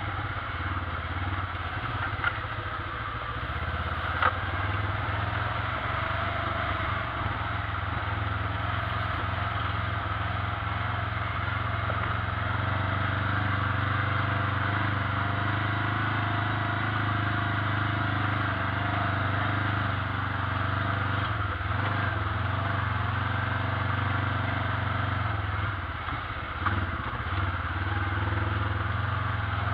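ATV engine running steadily while riding, with a few short knocks about 2, 4 and 27 seconds in.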